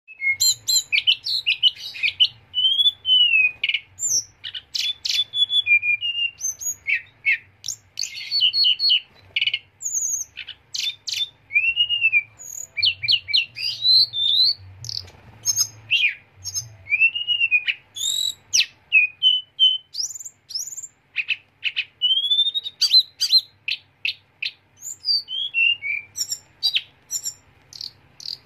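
Male hill blue flycatcher (tledekan gunung) singing a long, varied song of sharp, quick whistled notes and slurred phrases that rise and fall, in rapid bursts with short pauses between them.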